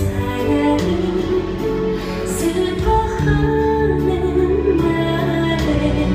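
Stage-show song played in a theatre: a solo singing voice holding long notes over sustained musical accompaniment.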